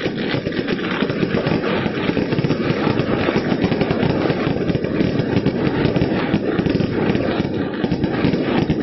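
A long string of firecrackers going off in a continuous, rapid crackle of pops.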